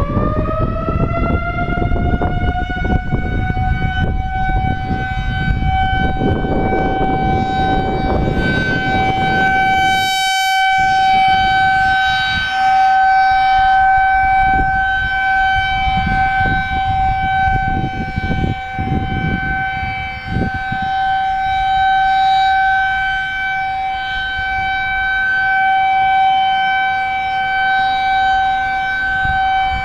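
Federal Signal 2001-DC rotating electromechanical warning siren finishing its wind-up, its pitch rising over the first couple of seconds, then holding one steady tone during a monthly siren test. The loudness slowly swells and fades as the siren head turns. Low rumbling noise runs under it for about the first ten seconds.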